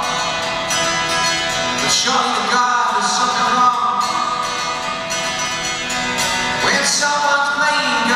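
A man singing live into a microphone, accompanying himself on an electro-acoustic guitar.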